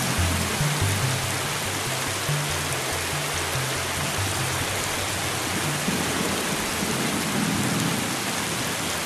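Steady rain falling, an even hiss of rain on hard surfaces. A low bass line of music plays under it for the first few seconds and then drops away.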